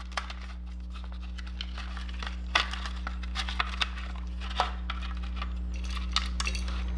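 Scattered clicks and knocks of wiring-harness plug connectors and wires against a motorcycle headlight shell as they are fed through its openings, over a steady low hum.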